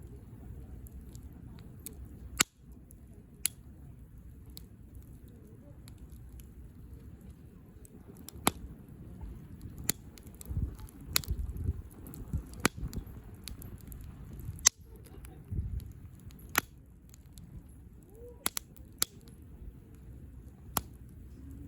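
Wood campfire crackling, with sharp pops every second or so over a steady low rumble.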